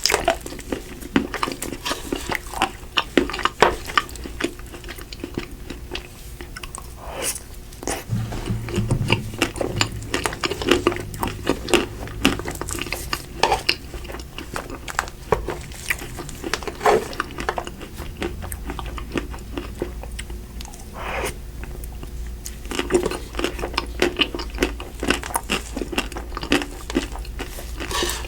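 Close-miked chewing of Magnum Double Pistachio ice cream, with many sharp crunches and wet mouth clicks, bite after bite.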